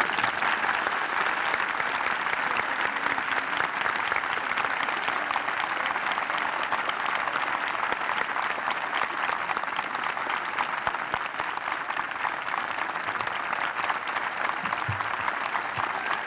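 An audience applauding, a long, steady round of clapping from many people.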